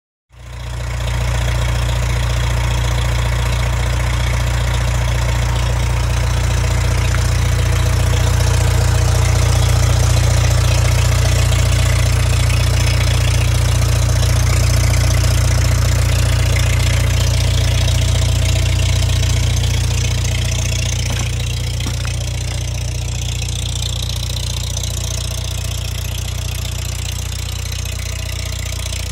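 The four-cylinder engine of a 1964 International B414 tractor idling steadily. It is a little quieter from about two-thirds of the way through.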